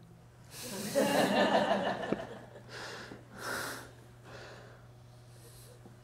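A person's breathing close to the microphone: a longer breathy exhale about a second in, then several short breaths or sniffs, over a faint steady low hum.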